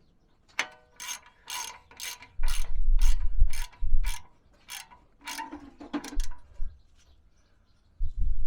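Hand ratchet wrench clicking through a run of about a dozen strokes, roughly two a second, with some dull low thumps in the middle, then stopping.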